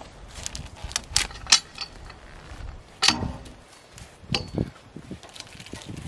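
Cant hook knocking and clanking against a pine log and the sawmill's steel bed as the log is turned into position: a series of sharp metallic knocks, the loudest about three seconds in, one near the end leaving a brief high ring.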